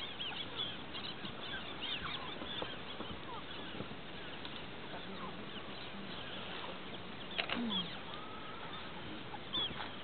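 Many small birds chirping and twittering in the background, their short calls overlapping steadily. About seven and a half seconds in comes one louder, lower sound that falls in pitch.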